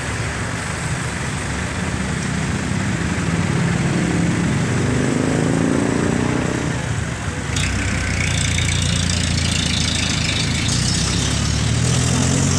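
Road traffic: a motor vehicle engine running close by, its pitch rising for a few seconds about four seconds in, over steady traffic noise.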